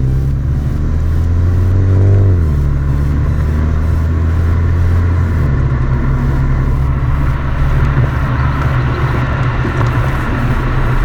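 MINI GP3's turbocharged four-cylinder running at a fast idle just after a cold start, the engine speed dropping in two steps as it settles, heard from the exhaust. A brief rise and fall in pitch comes about two seconds in, and a rushing noise grows in the second half.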